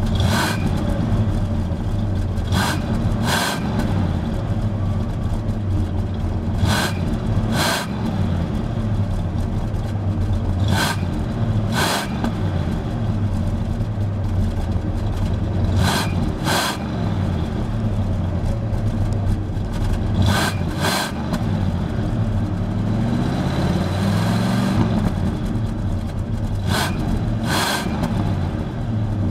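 1973 Cadillac Fleetwood Brougham's 472 cubic-inch V8 heard at the tailpipe, idling evenly with a quiet, controlled exhaust note. The revs rise and fall briefly about three quarters of the way through. Short sharp noises come in pairs every few seconds.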